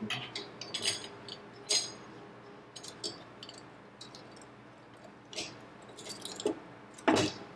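Snap-ring pliers working a snap ring down into its groove inside a Dodge half-ton front axle housing: scattered sharp metal clicks and clinks, with the loudest knock near the end.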